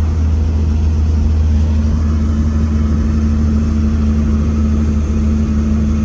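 Helicopter engine and rotor running steadily on the ground during the warm-up before take-off: a loud, constant low drone with a steady hum that does not change.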